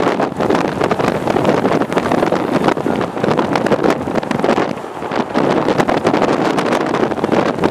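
Strong gusty wind buffeting the microphone, a loud rough rumble that surges and eases.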